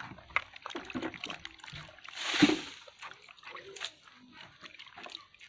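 Water sloshing and splashing in a plastic basin as hands wash and turn snakes in it, with small wet clicks throughout and one louder splash about halfway through.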